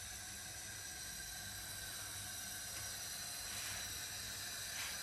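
Steady hiss of a gas stove burner under a tawa, with a couple of faint brief sounds near the end.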